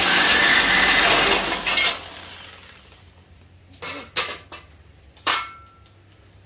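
Power saw cutting through a steel truck frame rail, stopping about two seconds in. A few sharp metal clanks follow, the last ringing briefly.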